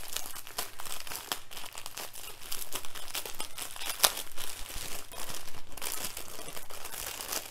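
Clear plastic bag of diamond-painting drill packets being opened and handled: continuous crinkling and crackling of thin plastic, with one sharp crackle about four seconds in.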